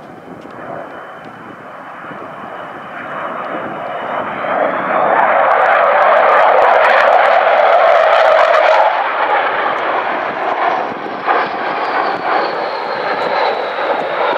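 Avro Vulcan XH558's four Rolls-Royce Olympus turbojets in a low flypast: the jet noise builds, is loudest and crackling from about six to nine seconds in, then eases as the bomber passes. A thin high whistling tone runs over it, rising in pitch a few seconds in and then slowly falling.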